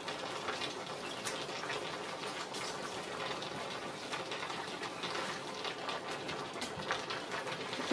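A pot boiling on the stove: a steady bubbling hiss, with a few faint light taps.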